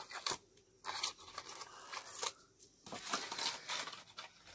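Hands loosening a slab of coagulated rubber latex from the sides of a metal tray: irregular scraping and peeling noises with short pauses between them.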